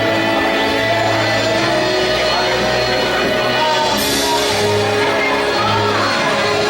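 Music with a steady bass line and sustained chords, and a cymbal crash about four seconds in.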